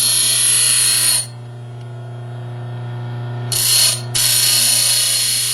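6-inch bench grinder running with a steady motor hum while a piece of hacksaw blade is ground on the wheel: a loud hissing grind for about the first second, a short one about three and a half seconds in, and another from about four seconds until near the end.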